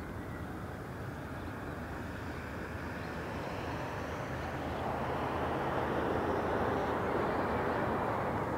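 Distant diesel locomotives of a double-stack intermodal freight train rumbling steadily, growing gradually louder as the train approaches.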